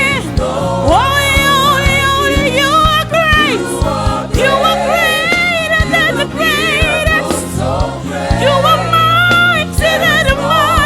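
Live gospel worship music: a singer holding long notes with wide vibrato over a band with a steady drum beat and backing choir.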